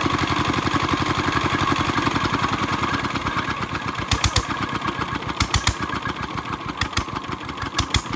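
Small stationary engine driving a belt-driven well winch, running with a steady, fast firing beat that gets quieter in the second half. Four short bursts of sharp knocks, each a quick double or triple, come at roughly one-second intervals from about halfway in.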